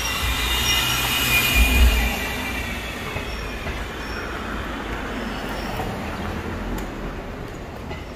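Subway train running beneath the street, its wheels squealing: a cluster of high steady squeal tones that fade over the first few seconds, over a low rumble that swells about two seconds in and then eases off.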